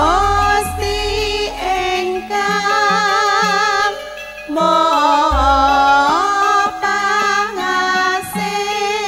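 Female voices singing a Javanese langgam in campursari style, the melody full of vibrato, backed by a live band with a deep bass line.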